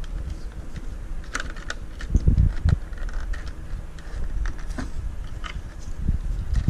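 Scattered small clicks, taps and a few low knocks of hands and tools working on a loudspeaker's amplifier module, with its wire connectors being handled.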